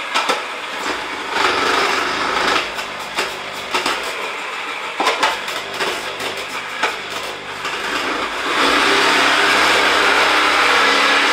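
Krups kitchen mixer's motor running with its slicing attachment as potatoes go in, uneven at first with a few knocks. From about eight and a half seconds it runs steady and louder.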